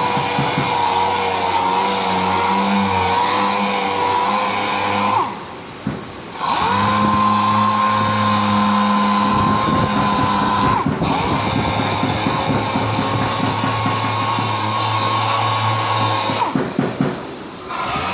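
Random orbital sander running against cured body filler on a car door panel: a steady high whine over a lower hum. It stops briefly about five seconds in and again near the end, starting up again each time.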